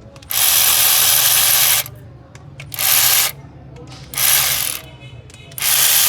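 Four bursts of loud hissing, two long and two short with brief pauses between, over a steady low hum.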